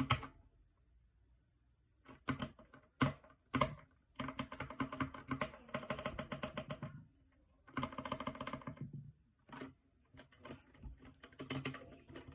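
Typing on a Redragon K552 mechanical keyboard with red linear switches: a few single keystrokes, then two quick runs of clicking keystrokes, then lighter scattered taps near the end.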